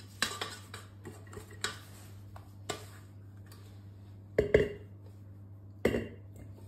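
Spatula against mixing bowls: light clicks and scrapes as whisked egg white is scraped out of a stainless steel bowl, then two louder knocks with a brief ring, about four and a half and six seconds in, as the spatula strikes the bowl while folding the egg white into a soufflé mix.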